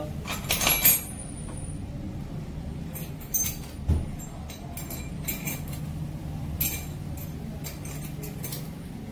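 Steel gearbox parts clinking in the hands: a Royal Enfield Bullet's selector forks and gear shaft being handled and fitted together, in a scatter of small sharp clinks, the busiest in the first second. A steady low hum runs underneath.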